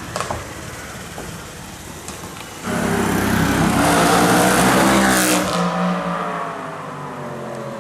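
Audi RS5 engine through a Capristo exhaust, running steadily with a brief crack near the start; about three seconds in it is suddenly revved hard, the note climbing and staying loud for a couple of seconds before falling away.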